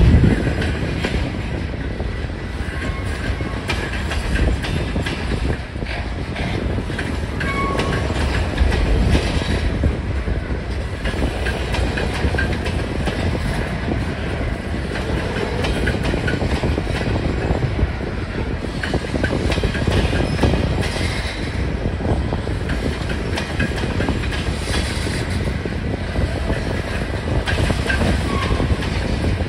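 Covered hopper cars of a freight train rolling past: a steady rumble of steel wheels on rail with a constant patter of clicks as the wheels cross rail joints, and a few brief faint squeaks.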